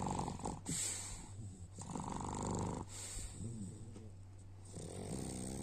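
A pug snoring in its sleep: three raspy snores a couple of seconds apart, with softer breathy sounds between them.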